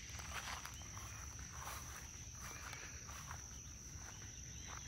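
Steady high-pitched drone of an insect chorus, with faint soft footsteps on grass.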